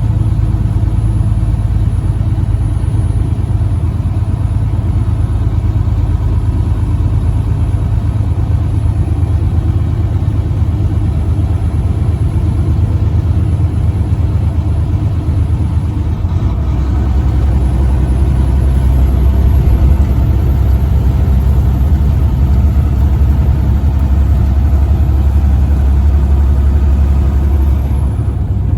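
Truck engine running steadily as the truck drives, a loud low drone. About halfway through, the drone drops lower and grows louder, and a faint high whine rises and holds until near the end.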